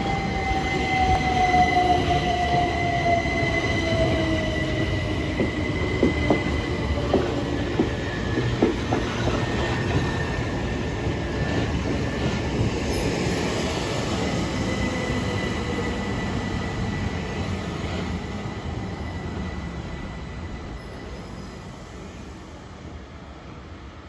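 Electric multiple-unit train passing close and running on into the station. Its motor whine falls in pitch, its wheels click over rail joints, and the sound fades away near the end.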